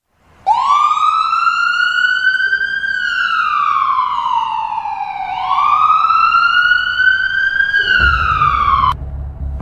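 Ambulance siren wailing, slowly rising and falling in pitch about twice, then cutting off suddenly near the end as a low rumble comes in.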